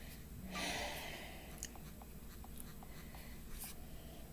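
A person breathes out once, then a few faint soft clicks follow.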